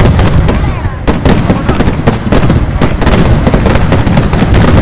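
Vedikettu fireworks in a rapid, dense barrage of firecracker blasts, one on top of another, with a brief lull about a second in.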